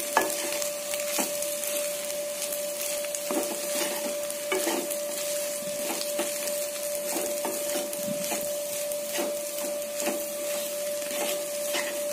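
Wooden spatula stirring and tossing fried rice in a kadai, with irregular scrapes and knocks against the pan over a continuous frying sizzle. A thin steady hum runs underneath.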